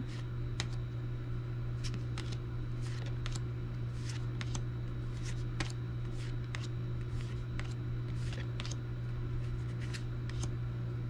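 Disney Lorcana trading cards being slid and flipped one at a time in the hand: a string of short, irregular swishes and clicks, over a steady low hum.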